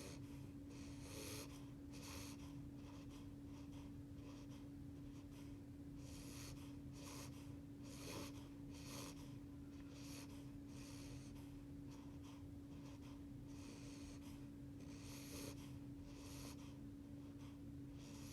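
Faint sleeping breaths and soft little snores from an eight-week-old beagle puppy: short airy breaths, one or two a second at an uneven pace. A steady low hum runs underneath.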